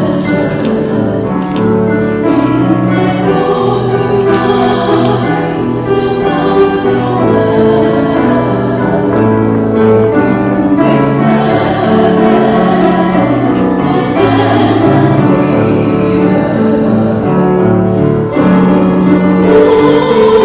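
Choir singing a hymn with musical accompaniment in held chords, the offertory hymn of the Mass.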